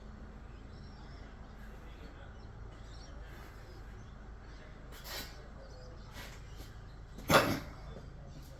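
A single sharp knock about seven seconds in, with a fainter click a couple of seconds earlier, over a steady low hum.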